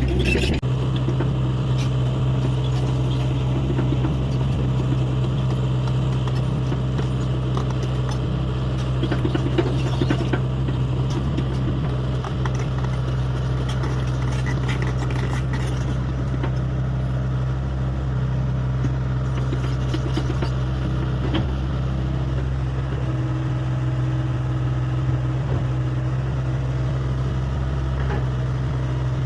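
Hyundai 85A excavator's diesel engine running steadily under work, with occasional metallic clatter, most noticeable about ten seconds in and again around twenty seconds.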